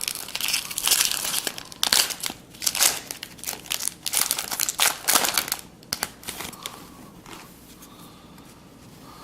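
Baseball card pack wrapper crinkling and tearing as it is ripped open, a dense irregular crackle for the first six seconds or so, then softer rustling.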